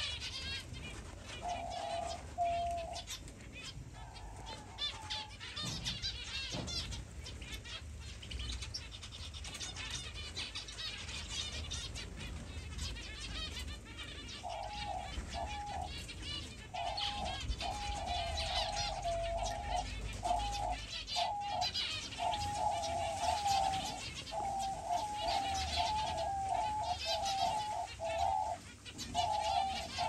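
Aviary doves cooing in runs of short, low, repeated notes: a few near the start, then almost continuously from about halfway on, over a constant high chirping and twittering of small finches.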